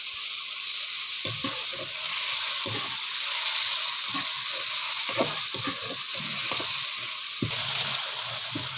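Chopped tomatoes, ginger and dried plums sizzling in hot ghee in a kadhai, a steady hiss, while a slotted metal spoon stirs them, scraping and knocking against the pan at irregular moments.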